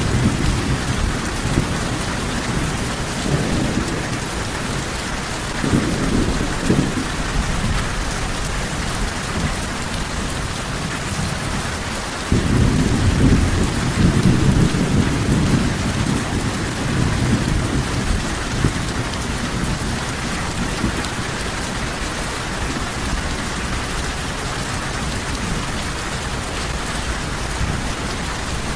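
Steady heavy rain with low rolls of thunder; the loudest rumble starts suddenly about twelve seconds in and fades over several seconds, with smaller rumbles near the start and about six seconds in.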